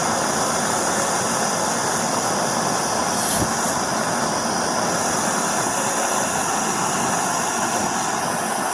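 Gas torch flame burning with a steady hiss as it heats an aluminum can to melt low-temperature aluminum solder rod. A brief click about three seconds in.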